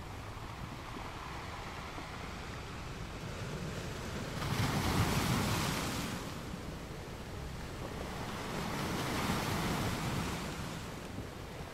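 Steady rushing noise that swells up twice, for about two seconds each, about four and nine seconds in.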